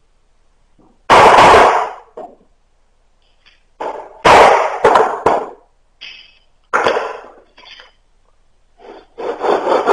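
A knife being batoned into a piece of wood: about six loud, irregularly spaced blows of a wooden stick on the knife's spine as the wood is split. Near the end a fast, even run of scraping strokes begins.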